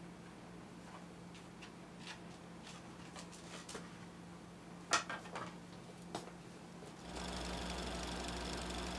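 Light clicks and rustles as a Super 8 film box and reel are handled, the sharpest click about five seconds in. About seven seconds in, a Super 8 film projector starts running with a steady mechanical whirr.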